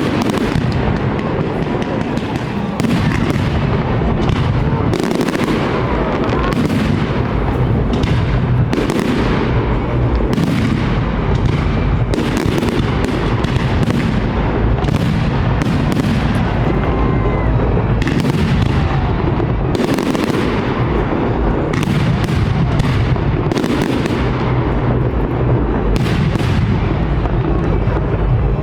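Fireworks display: shells bursting one after another in a dense barrage of booming bangs, several a second at times, over a constant low rumble.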